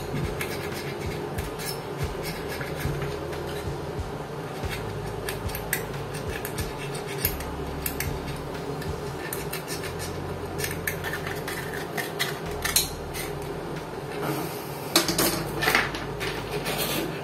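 Sandpaper scraping against the opened plastic body of a small handheld bag heat sealer: short, uneven scratching strokes with small clicks. Near the end there is louder clatter of hand tools being handled on the bench.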